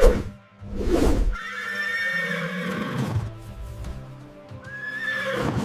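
A horse neighing, with high, wavering whinnies.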